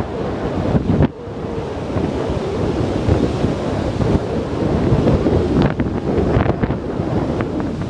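Strong wind buffeting the microphone over the rush of heavy breaking surf.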